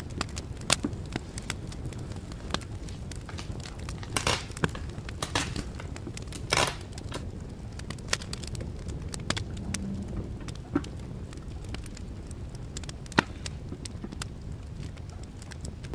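Small handling sounds of fitting a phone screen protector: scattered sharp taps and clicks of plastic and glass on the phone and desk, with three short rustling scrapes a few seconds in, over a steady low hum.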